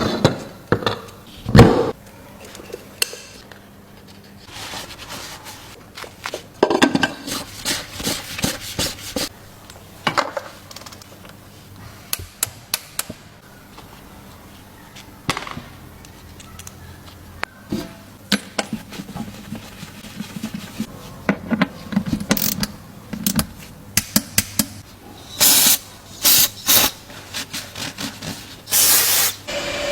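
Workshop hand tools clinking and knocking on metal during an engine oil change, irregular and scattered, with a few short hissing bursts near the end.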